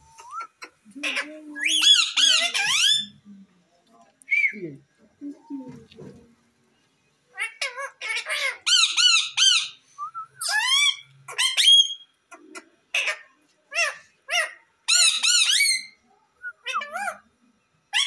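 Rose-ringed parakeets (Indian ringnecks) squawking in a series of short bouts, with pauses of a second or so between them.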